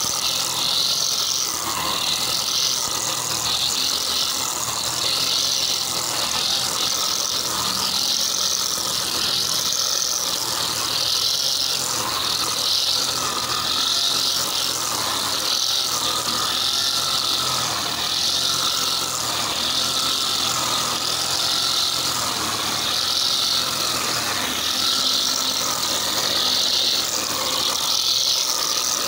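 Brush cutter with a nylon-line trimmer head running and cutting grass: a steady high hiss of the spinning line through the grass over the motor's note, which dips and recovers about once a second as the head sweeps back and forth.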